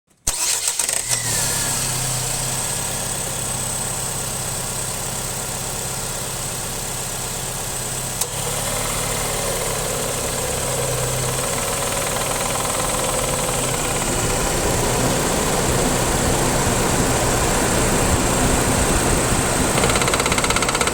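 2007–2012 Nissan Sentra 2.0L engine idling steadily; a sharp click about eight seconds in, after which a rattle from the A/C compressor sets in over the idle. The rattle comes only with the A/C on, and the owner suspects a loose compressor clutch, a worn bearing or internal damage in the compressor.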